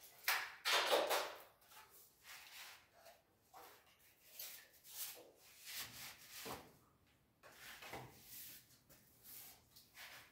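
Pieces of an adjustable wooden door frame being handled and slid about on protective paper over the floor: irregular rustling, scraping and light knocks, loudest about a second in.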